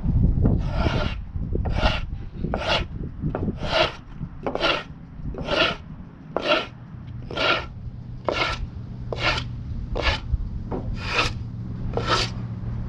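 Brush sweeping sawdust in steady, even strokes, about one a second, over a low steady hum.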